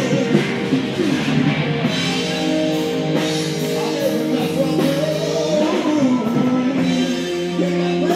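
Rock song with a singer and guitar, steady throughout.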